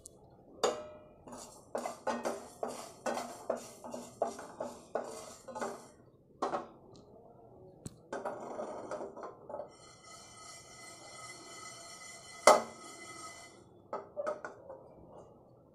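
Coriander seeds being dry-roasted in a nonstick frying pan and stirred with a spatula: short scraping, rattling strokes about three a second for the first six seconds. Then softer, steadier noise with a faint high tone, and one sharp knock on the pan about twelve and a half seconds in.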